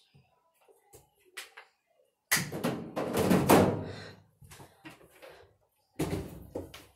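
Knocks and thumps of things being handled: a few faint clicks, then a loud clattering, rustling burst with several knocks about two seconds in, and a shorter burst of thumps near the end.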